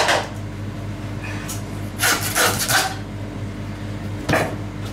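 Butcher's knife cutting and scraping through pork as the neck is cut free from a half pig on a plastic cutting board: a few short rasping strokes about two seconds apart, over a steady low hum.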